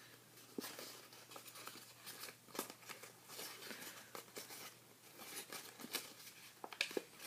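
Origami paper being folded into fan-like pleats along a creased grid: faint, irregular crinkling and small crackling clicks as the folds are pressed down.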